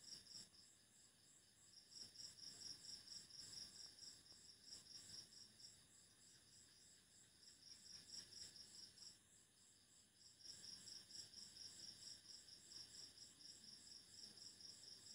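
Faint high-pitched insect chirping, a rapid pulsing trill that comes in bursts with short breaks, over quiet room tone.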